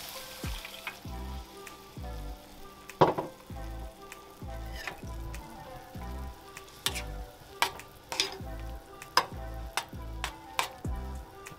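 Fried onion and tomato sizzling in a frying pan as broth is poured in and stirred, with a metal spoon clicking against the pan several times.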